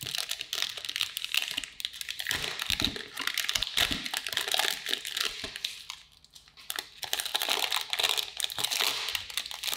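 Clear plastic film wrap being peeled and crumpled off a cardboard perfume box: dense crinkling and crackling, with a brief lull about six seconds in.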